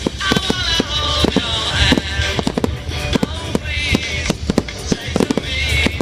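Display fireworks going off in rapid succession: many sharp bangs and crackles, several a second, with music playing alongside.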